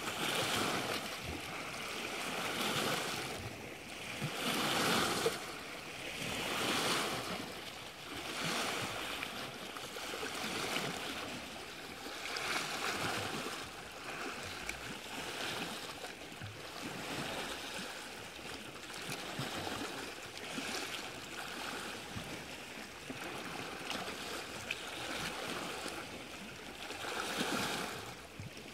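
Lake Superior waves washing and lapping, rising and falling in rhythmic swells about every two seconds, a little stronger in the first half.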